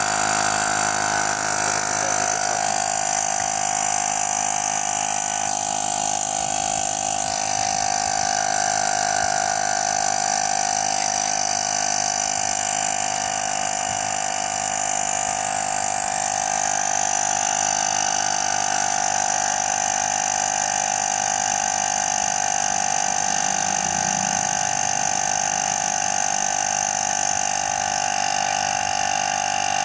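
Black Cat 12-volt portable tyre inflator's electric compressor running steadily, pumping air into a car tyre.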